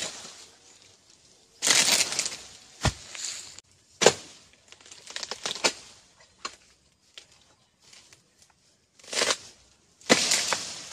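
Pole-mounted harvesting blade jabbing and prying at an oil palm's frond bases and fruit bunch stalk: irregular scraping, crunching strokes a second or two apart, with a few sharp cracks and frond rustling.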